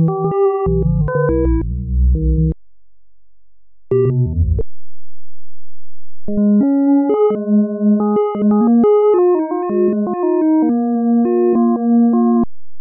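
Computer-generated tones from image-to-audio conversion software turning image colours into pitches. A few steady, pure tones sound together and jump to new pitches several times a second, like a stepping synthesizer chord sequence. Playback pauses twice, about 2.5 s in and again about 4.5 s in, and resumes with a new song-image about 6 s in.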